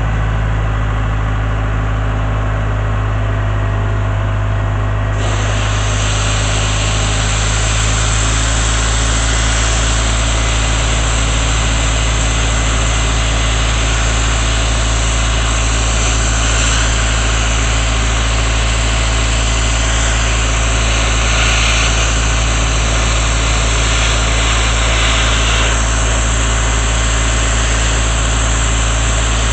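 Engine-driven air compressor running steadily; about five seconds in, the loud hiss of a sandblaster nozzle blasting starts over it and continues.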